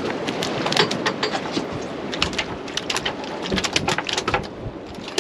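Freshly caught pompano flopping and slapping on a fiberglass boat deck, a rapid, irregular patter of taps over steady wind and water noise.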